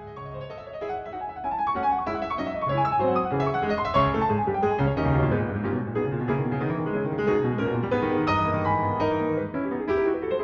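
Background piano music, a string of quick notes with chords underneath, at a steady level.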